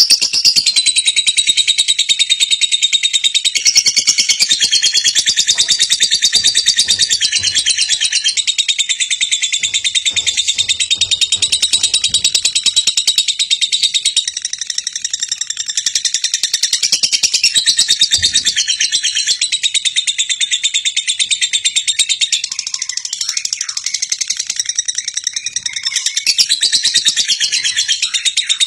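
Many small birds chirping and trilling rapidly without a break, the high calls overlapping densely.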